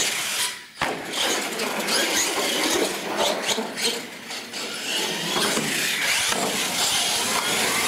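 R/C monster truck's electric motor whining and revving as it drives and jumps on a concrete floor. There is a sharp knock about a second in as it lands from a jump.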